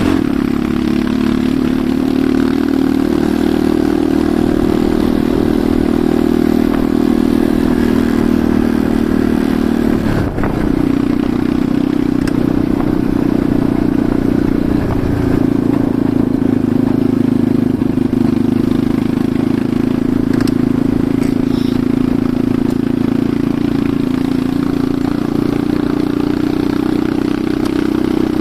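Enduro motorcycle engine running steadily under way, with a brief drop in engine note about ten seconds in.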